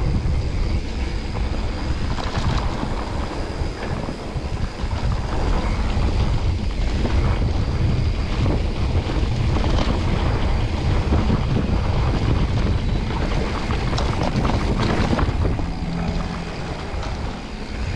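Wind rushing over the microphone of a mountain biker's camera while riding a rough trail, with scattered knocks and rattles from the bike. It eases slightly near the end.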